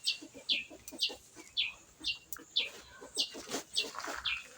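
A bird calling with a steady run of short, high chirps that fall in pitch, about two a second, with faint clicks underneath.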